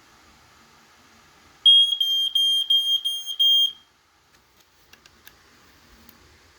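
American Sensors 770LBX smoke alarm sounding on its test button: a loud, high-pitched beeping, about three pulses a second, for about two seconds, then it stops. A few light clicks follow.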